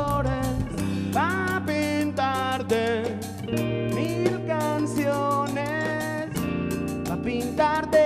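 Live band playing a song: a man singing into the microphone, with a sliding, rising phrase about a second in, over electric guitar and a drum kit.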